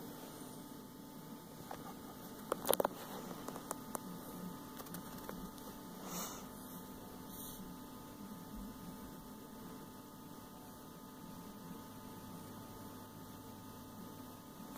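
Steady electrical hum, with a quick cluster of sharp clicks about two and a half seconds in and a couple of brief soft noises around six and seven seconds.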